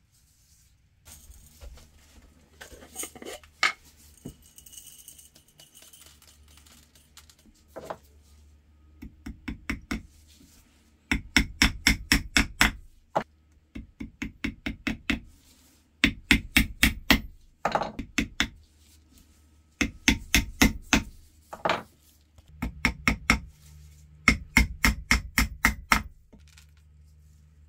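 Hammer blows in quick runs of about five to eight strokes, roughly five a second, with short pauses between runs. Each blow is a sharp strike with a brief ring.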